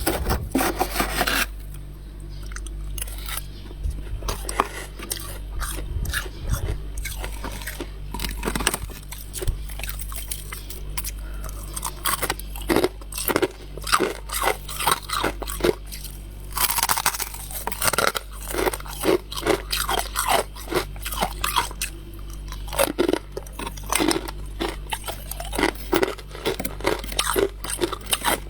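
Mouthfuls of frost bitten and chewed, a run of crisp, irregular crunches.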